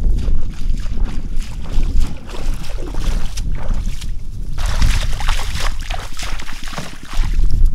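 Wind rumbling on the microphone, joined about halfway through by a stretch of loud splashing in shallow water.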